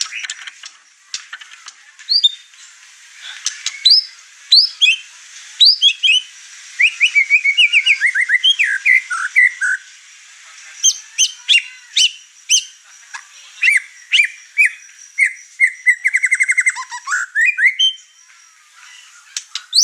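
White-rumped shama (murai batu) singing loudly, running through a varied repertoire of clear whistles, short chirps and sliding notes, with a fast rattling trill late on.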